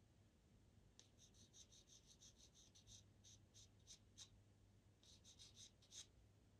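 Pastel pencil scratching across Pastelmat paper in quick, short strokes. The strokes are faint and rhythmic, about four to five a second, starting about a second in, with a brief pause a little after the middle.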